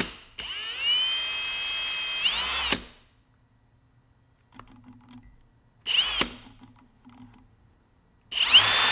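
Kobalt 24V cordless drill drilling out a small brass carburetor main jet held in locking pliers, run in bursts. It winds down at the start, runs about two seconds at a lower speed and rises briefly before stopping. A short blip comes about six seconds in, and it starts again at full speed near the end.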